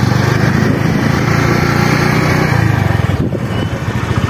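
Small motorcycle engine running at a steady rapid beat while riding, easing off briefly about three seconds in and then picking up again.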